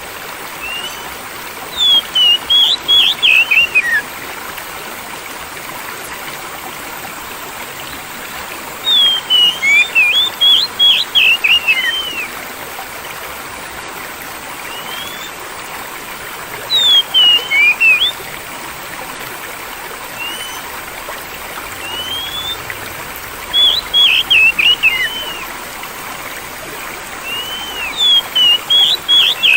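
Oriental magpie-robin (kacer) singing about five short bursts of quick, sweeping whistled phrases, a few seconds apart. Steady flowing water runs underneath: a calming therapy track for a stressed bird that has stopped singing.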